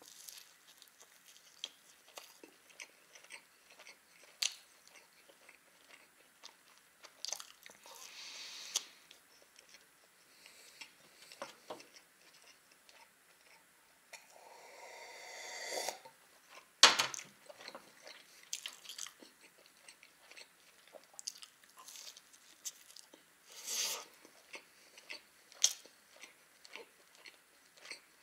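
Close-miked chewing and biting of a cheese-topped baked pie, with wet mouth clicks and soft crunches. About halfway through come a couple of seconds of drinking from a glass jar, then a single sharp knock, the loudest sound, before the chewing resumes.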